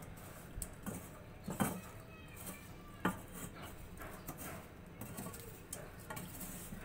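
A wire-mesh skimmer stirring peanuts through heated salt in a karahi, scraping, with a few sharp clinks of metal against the pan. The peanuts are being dry-roasted in salt over a low flame.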